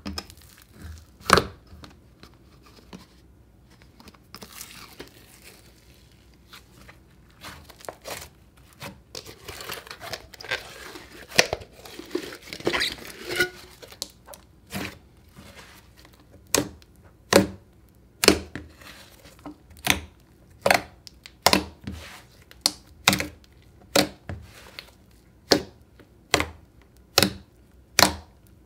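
Hands squishing and folding a thick glitter slime, with sticky crackling and clicks; over the second half the slime gives a steady run of sharp pops, a little more than one a second, as fingers press and poke into it.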